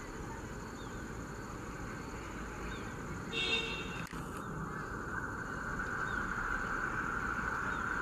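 A WAP-1 electric locomotive hauling a passenger train approaches, its running noise growing steadily louder through the second half. A short horn toot sounds about three seconds in.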